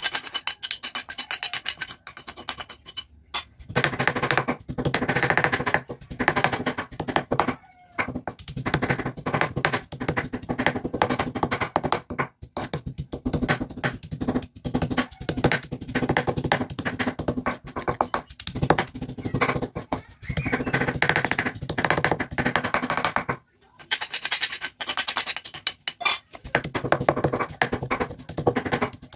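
Stone pestle grinding and crushing a coarse spice paste of shallots, garlic and chillies on a flat stone mortar (ulekan on cobek), in rapid scraping and knocking strokes. The strokes break off briefly twice, about eight seconds in and again near the end.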